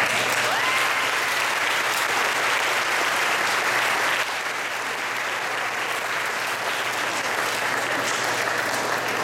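Audience applauding, starting suddenly and easing slightly about four seconds in, with a short whoop near the start.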